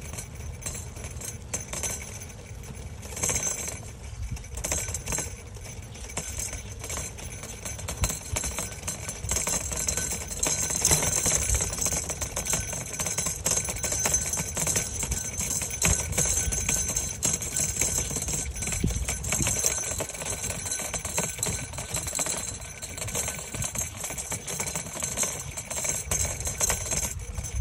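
A bicycle ride: steady road and wind rumble with constant light rattling and jingling from the bike and its dog sidecar. It grows somewhat louder after about ten seconds.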